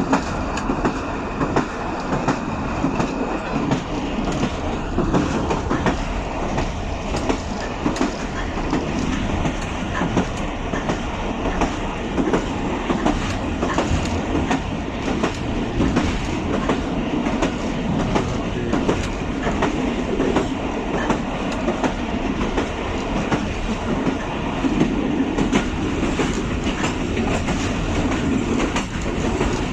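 Passenger coach wheels running on the rails, heard from aboard the moving train: a steady rumble with frequent sharp clicks from the rail joints. A thin high squeal fades out about three seconds in.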